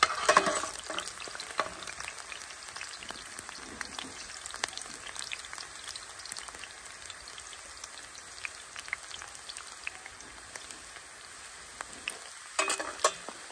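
Half an onion browning in hot oil in a pan: a steady sizzle with scattered small pops and crackles. A few louder sharp clicks come just after the start and again near the end.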